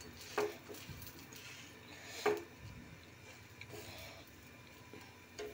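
Two short clinks of a metal spatula against a tawa (flat griddle), about two seconds apart, over faint background noise.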